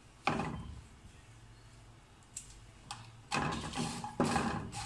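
Wooden spatula stirring whole dried red chillies around a non-stick frying pan as they dry-roast: dry rattling and scraping strokes, once just after the start and twice near the end.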